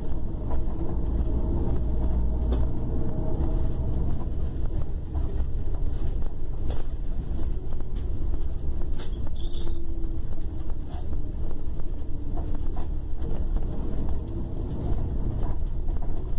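Long-distance double-deck coach running steadily, a low engine rumble with slight shifts in pitch and scattered small clicks and rattles.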